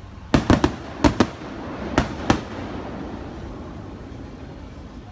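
Aerial firework shells bursting: a quick run of about seven sharp bangs within the first two and a half seconds, then the noise dies away.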